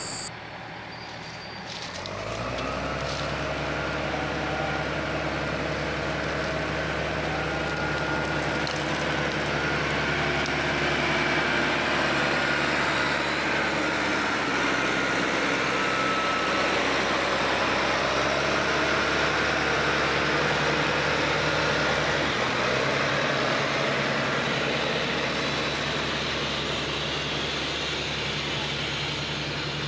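Heavy diesel engines of a wheel loader and a stuck lowboy truck running hard under load during a recovery pull. The engine note comes up about two seconds in and holds steady, with a high whine that dips and recovers twice. The note drops slightly past the twenty-second mark.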